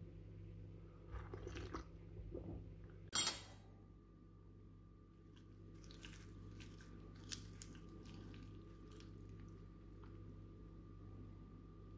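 A single sharp knock about three seconds in, then a metal fork clinking and scraping lightly against a ceramic bowl as it twirls noodles, over a faint steady hum.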